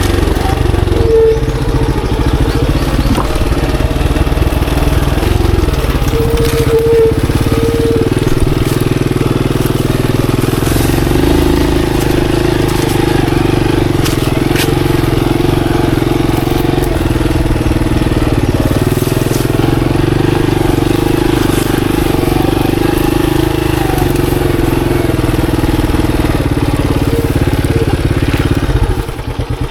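Monarch Axis 125 motorcycle's 125 cc single-cylinder engine running steadily while riding a trail, with a few short knocks over the ride. Near the end it drops to a quieter, slower, even beat.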